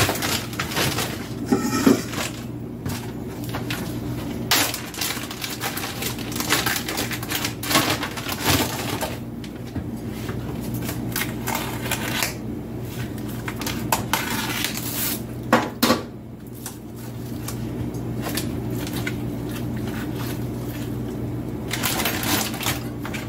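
Plastic freezer bags crinkling and rustling as they are opened and handled, with scattered sharp clicks and knocks, over a steady low hum.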